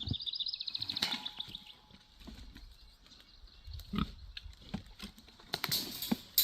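Feeder piglets squealing and grunting: a high, rapidly pulsing squeal in the first second or so, scattered low grunts, and a louder squeal near the end.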